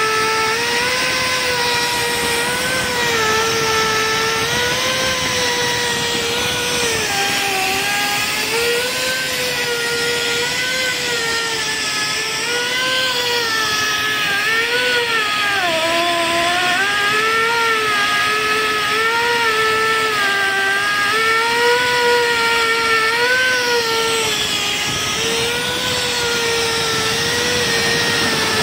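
Motor of a portable on-site crankpin machining tool running continuously. Its whine wavers up and down in pitch and dips lowest about halfway through, over a steady hiss.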